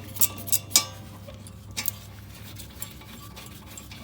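Hand ratchet on a 14 mm socket working a rear brake caliper bracket bolt: a few sharp metallic clicks in the first two seconds, then only a low steady hum.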